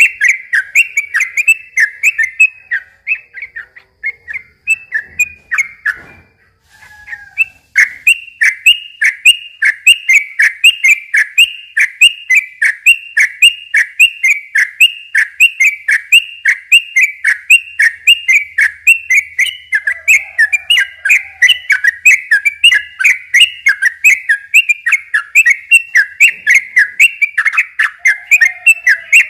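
Yellow-vented bulbul (trucukan) singing a long, fast run of short repeated sharp notes, about four a second. The run thins out a few seconds in, stops briefly, and then resumes unbroken.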